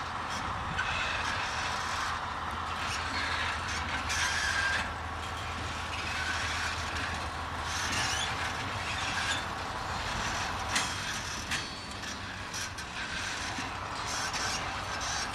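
Railway flat wagons rolling slowly during shunting, their wheels and couplings creaking and squealing on the rails, with scattered metallic clicks. A low steady drone from the SM42 diesel shunting locomotive runs under the first half and then fades.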